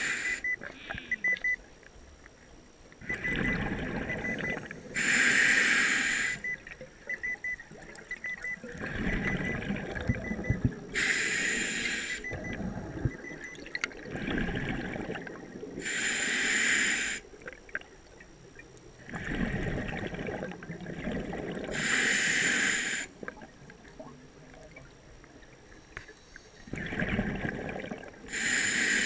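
Scuba diver breathing through a regulator underwater. A steady cycle of a rasping inhale through the regulator, then a loud gurgling rush of exhaled bubbles, about one breath every five to six seconds.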